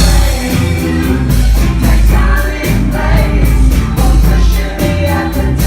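A band playing loud rock-pop music live, with singing over bass and drums keeping a steady beat.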